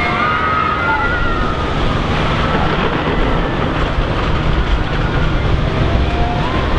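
Steady noise of wind and surf with a low rumble, and gulls giving short arched calls at the start and again near the end.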